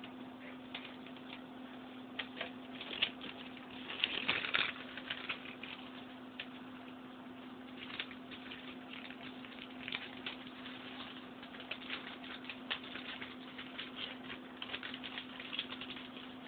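Newspaper crinkling and tearing as a pet chews on it: irregular quick crackles and rustles, busiest and loudest about four seconds in.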